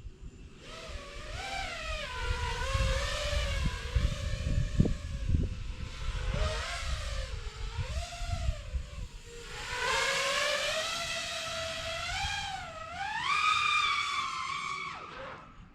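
Nazgul Evoque F6D FPV quadcopter's motors whining, the pitch rising and falling again and again as the throttle changes, climbing highest just before the end and then dropping away. A low rumble sits under it.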